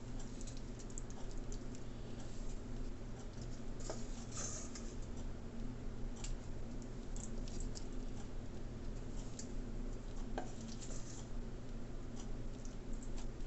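Steady low hum of room tone, with faint scattered light clicks and scratches.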